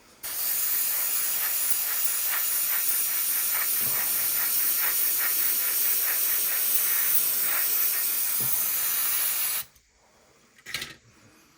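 Airbrush spraying paint: a steady hiss of air that starts just after the beginning and cuts off abruptly nearly ten seconds in.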